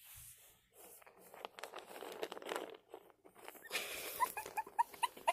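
A cat crunching dry treats with its head in a metal treat jar: a faint run of quick small crunches and clicks, with a few tiny squeaky sounds near the end.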